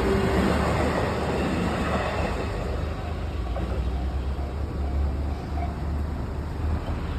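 JR Nambu Line electric commuter train running over the level crossing: a steady low rumble of wheels on track that eases a little about three seconds in.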